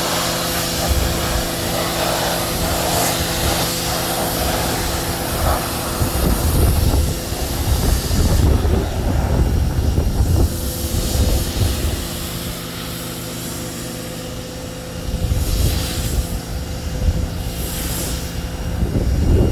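Electric pressure washer running and spraying, its motor humming steadily. The hum cuts out about six seconds in and starts again after about twelve seconds, as the spray trigger is let go and pulled again. Gusty rumble of wind on the microphone runs throughout.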